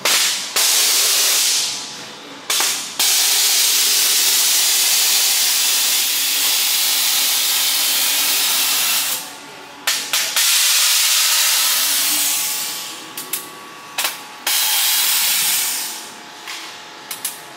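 Pressurised gas hissing out in a series of loud bursts: several long hisses that cut in suddenly and taper away, the longest about six seconds, with short puffs between them.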